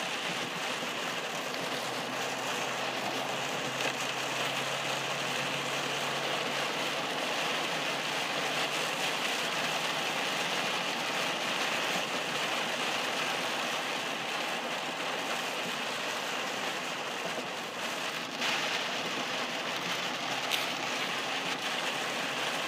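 Heavy rain beating on a car's windshield and roof, mixed with tyre noise on the wet road, heard from inside the moving car: a steady rush of noise, with a short click near the end.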